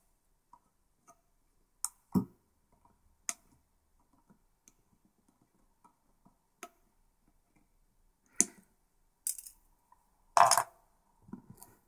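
Side cutters snipping off the excess leads of freshly soldered capacitors on a circuit board: several sharp, separate snips a second or more apart, with a louder knock about ten seconds in.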